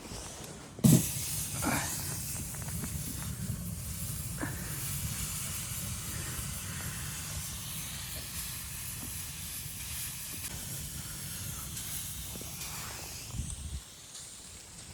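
A sharp knock about a second in, then a steady hiss that holds at an even level and stops abruptly near the end.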